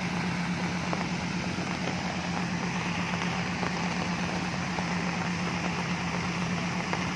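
Rushing floodwater over a river crossing with the steady, unchanging drone of a vehicle engine running underneath.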